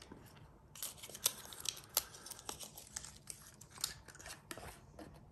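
A small cardboard perfume sample box being opened by hand: a quick run of sharp crinkling, scratching clicks of card and wrapping, starting about a second in.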